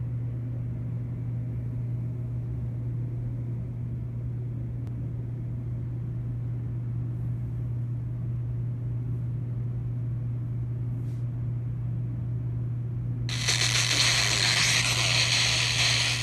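A steady low hum, then about three-quarters of the way in, loud FM radio static hiss cuts in abruptly from an RTL-SDR receiver running in a phone app, beginning to break up as an FM broadcast station tunes in near the end.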